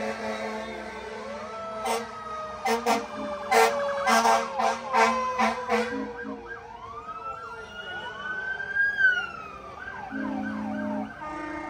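Emergency vehicle sirens sounding, with a run of short pitched horn blasts in the first half and a siren wail that rises and falls near the middle, then a steady tone near the end.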